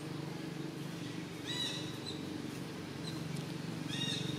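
Two short, high-pitched animal calls, one about a second and a half in and another near the end, over a steady low hum.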